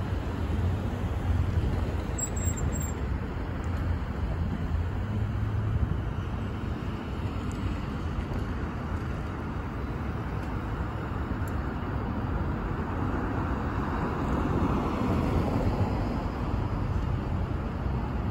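Street traffic: cars driving through an intersection, a steady low rumble of engines and tyres, with one car passing closer about three-quarters of the way through.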